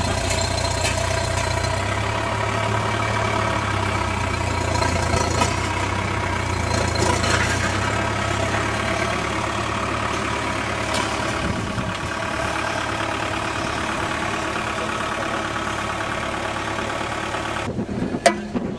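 Road-rail excavator's diesel engine running steadily, with a few sharp knocks over it; the sound changes abruptly just before the end.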